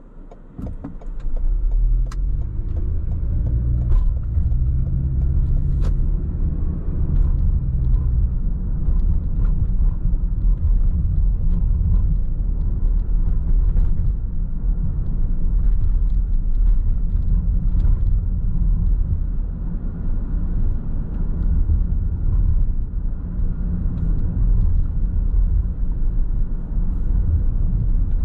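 Car pulling away and driving, heard from inside the cabin: the engine and road noise rise sharply about a second in, the engine note climbing over the first several seconds as it accelerates, then settling into a steady low rumble while cruising.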